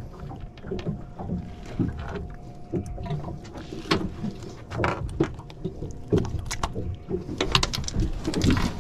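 Scattered knocks and taps on a boat's fiberglass deck as a gag grouper is handled and shifted, with a louder cluster of knocks near the end, over a steady low rumble of water and wind.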